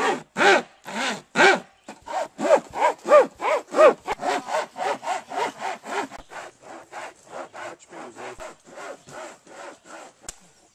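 Two-person crosscut saw cutting through a dead, weathered log: rhythmic push-pull strokes with the blade ringing on each pass. The strokes come about two a second at first, then speed up and grow fainter, near four a second, in the second half.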